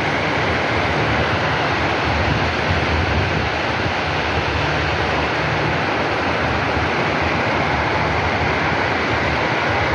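Heavy rain pouring steadily, a dense even hiss, with a low rumble underneath.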